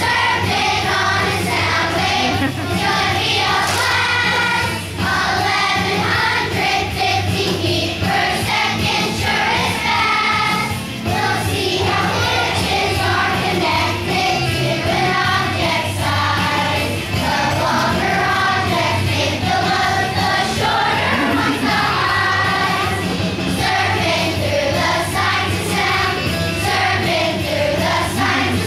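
Children's choir singing a song, with a steady low accompaniment underneath.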